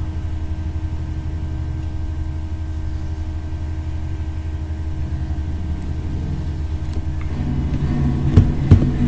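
Steady low hum of background machine or electrical noise, with two short thumps near the end.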